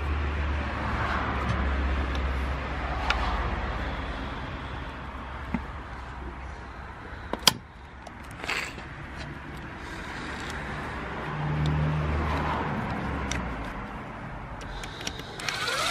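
A low steady rumble, two sharp clicks around the middle, and a cordless drill-driver starting up with a rising whine near the end to drive in the new slave cylinder's bolts.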